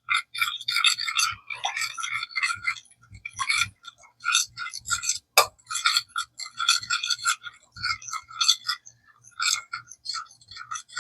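A utensil stirring melted butter and Dijon mustard in a saucepan, clinking and scraping against the pan in quick, uneven strokes.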